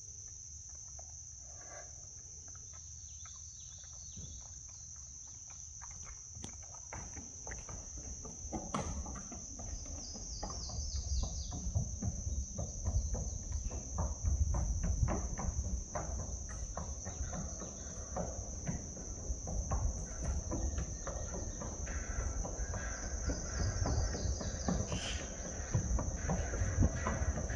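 Insects trill in a steady, even, high-pitched buzz. Over this, a horse's hooves clop on the wooden plank deck of a steel truss bridge, irregular knocks that grow louder from about eight seconds in as the horse walks closer.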